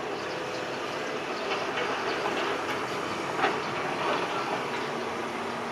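Sumitomo SH125 hydraulic excavator's diesel engine running steadily under hydraulic load as the boom and arm move, with scraping and clanking from the work, including one sharp knock about three and a half seconds in.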